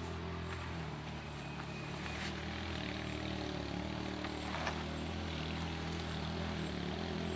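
A steady, low engine hum, like an engine idling, with a few faint taps.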